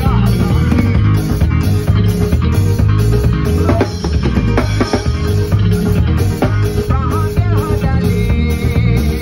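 Live band music with a drummer playing a drum kit, keeping a steady beat over a heavy bass low end.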